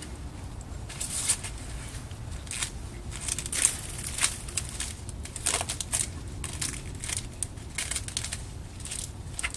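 Adhesive tape and a cloth bag being handled and wrapped around a fire extinguisher nozzle: irregular crackling and rustling, over a low steady rumble.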